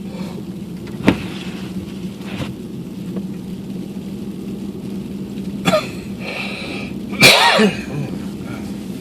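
Steady hum of a car's cabin while driving, with a sharp click about a second in and two short, louder noisy bursts near the end, the last one the loudest.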